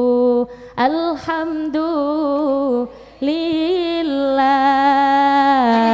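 A woman singing unaccompanied into a microphone, in long held notes with ornamented runs: two phrases with a short breath about three seconds in.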